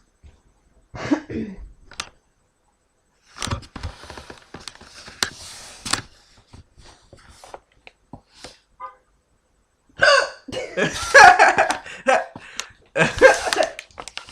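A person hiccuping several times, with short vocal outbursts; the loudest come in a cluster near the end.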